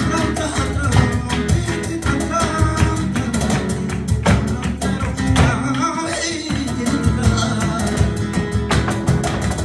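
Live flamenco music in the alegrías style: a cajón and hand-clapping keep up dense, sharp beats under a sung line.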